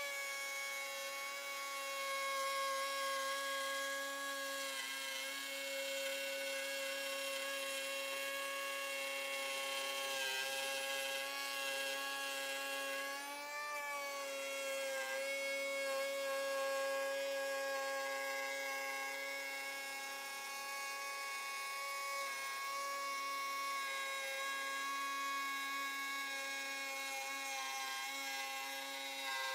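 High-speed electric power tool motor running steadily with a high whine, its pitch dipping briefly a couple of times, around ten and thirteen seconds in.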